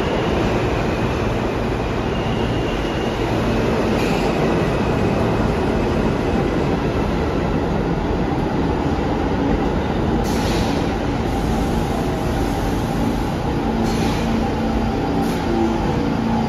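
R160A subway train running through an underground station, its wheels rumbling on the rails, then a C train of R160s pulling in and slowing to a stop. A steady motor hum grows toward the end, with a few short hisses in the second half.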